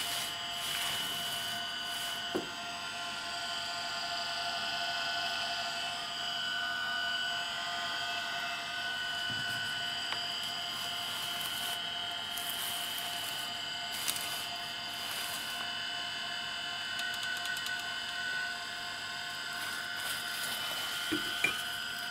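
Sperry aircraft gyro rotor spinning at full speed, a steady high whine of several held tones; the gyro is up to speed and rigid. A few light knocks as the unit is handled, two of them close together near the end.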